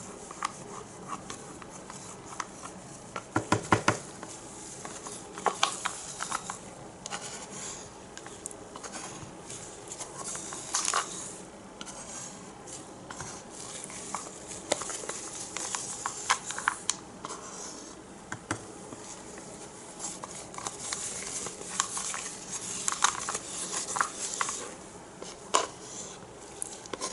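Intermittent light scraping, tapping and clicking of plastic paint cups and a stirring stick while fluid acrylic paint is poured from cup to cup.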